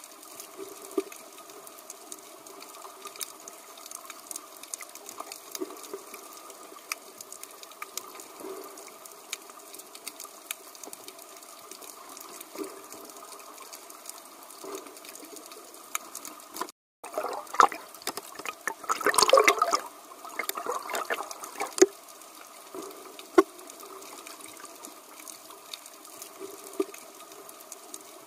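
Underwater ambience picked up by a camera: a steady muffled water hiss with scattered small clicks. About two-thirds of the way through, after a brief dropout, a louder burst of bubbling lasts a few seconds.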